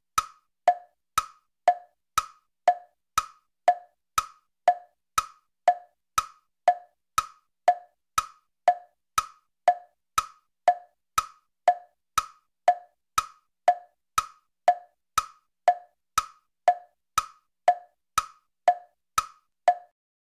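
Wood-block knock sound effect repeating at a steady pace, about two hollow, pitched knocks a second, like a ticking clock.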